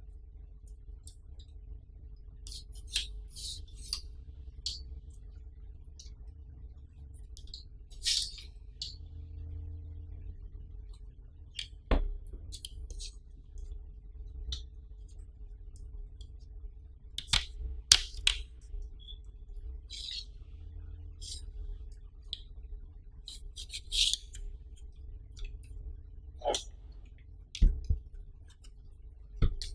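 A folding three-legged tripod stand being handled and unfolded: scattered clicks and rattles from its legs and plastic fittings, with a few heavier knocks as its feet are set down on a tabletop near the end.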